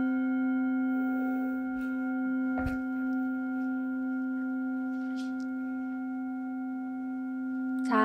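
Metal singing bowl resting on an open palm, ringing on after a single mallet strike: a steady low hum with several higher overtones, slowly fading. A faint knock comes about two and a half seconds in.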